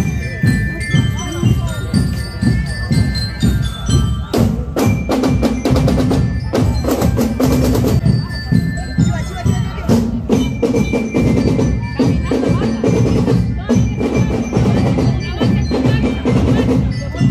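Marching band music: drums beating a steady parade rhythm under a ringing bell-lyre (glockenspiel) melody.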